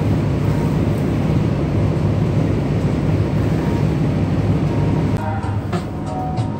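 Steady low drone of a ship's machinery, heard inside the galley. About five seconds in it dips and background music comes in.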